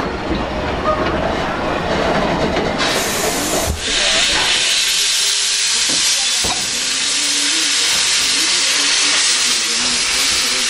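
Railway coaches rolling past close by with a rumble for the first few seconds, then a steady loud hiss of escaping steam from about four seconds in, with a single knock a couple of seconds later.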